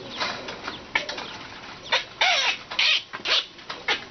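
Baby chacma baboon hiccuping: about ten short, sudden sounds at irregular intervals, a few longer and breathier, one about two seconds in with a brief rise and fall in pitch.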